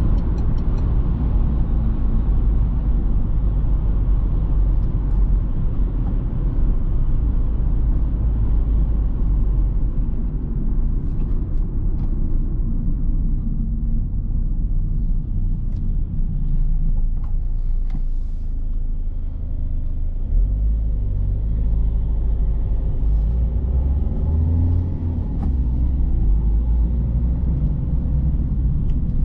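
Citroen C3 Picasso's 1.6 HDi four-cylinder turbodiesel and its tyres at steady expressway cruising speed, heard from inside the cabin as a continuous low rumble of engine and road noise.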